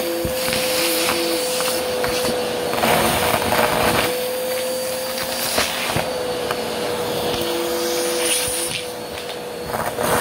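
Bagless upright vacuum cleaner running with its crevice tool, the motor holding one steady whine throughout. Over it come repeated louder bursts of noise as glitter, sequins and beads are sucked up the tool.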